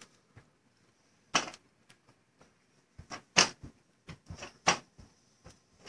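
A scattered series of short, sharp clicks and knocks: one about a second and a half in, then a quicker cluster of several between three and five seconds in, the loudest about three and a half seconds in.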